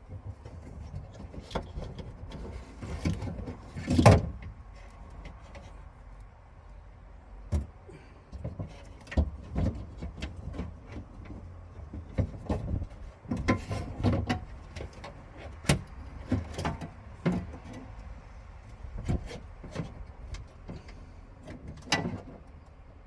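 Irregular clicks, knocks and light rattles of parts and tools being handled against a car door during reassembly of its handle and lock actuator, with one louder knock about four seconds in.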